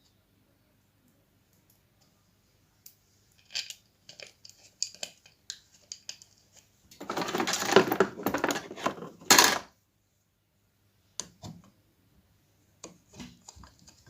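Small metal clinks and taps of screws and a screwdriver being handled while the housing screws of a horn driver unit are fitted and tightened. A few scattered clicks are followed about seven seconds in by a busier metallic rattle lasting about three seconds, then more single clicks.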